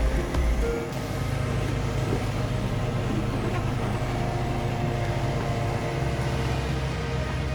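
A watercraft engine running steadily, a low drone.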